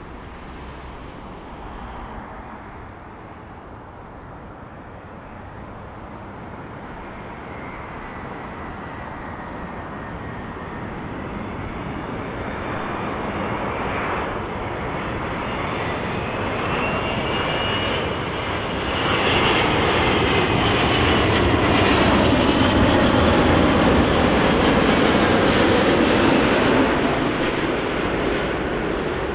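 Jet airliner passing close on its landing approach. Its engine noise grows steadily for about twenty seconds, with a high whining tone that drifts in pitch, is loudest about two-thirds of the way in, and eases off near the end.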